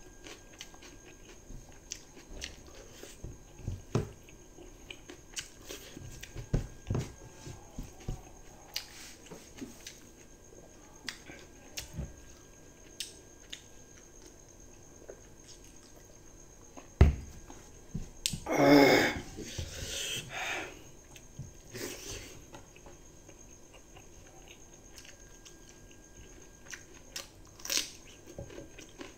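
Close-up chewing and wet lip-smacking of a person eating rice, fried egg and dal by hand, with many small mouth clicks. About two-thirds of the way through comes a louder breathy sound lasting under a second, followed by two softer ones.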